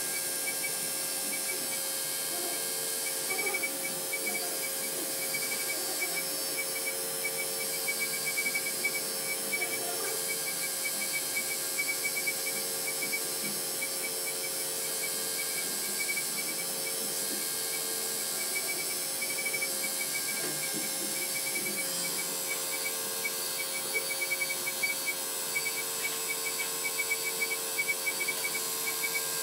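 MakerPi 3D printer running: a steady fan hiss with a motor whine that comes and goes as the print head moves.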